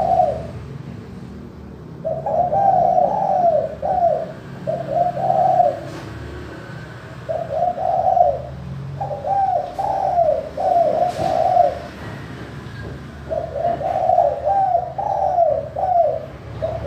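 Spotted dove (tekukur) cooing: three phrases of several coos each, with short pauses between them, over a faint steady low hum.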